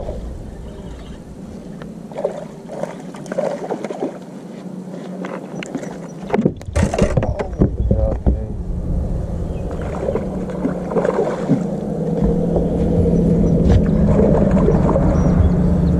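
Knocks and clatter on a bass boat's deck while a hooked smallmouth bass is fought and lifted aboard, loudest a little before halfway. From about halfway a steady motor hum starts and grows louder near the end.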